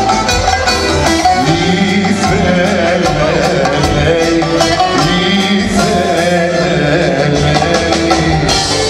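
Live band playing a Greek popular song, with a male singer's amplified vocal over it, recorded from the audience in a concert hall.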